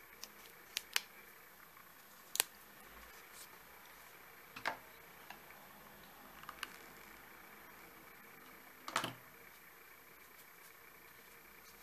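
Faint handling noise from fingers working EVA foam petals on a pen: a scattering of soft clicks and light knocks, the loudest about nine seconds in, over a steady faint hiss.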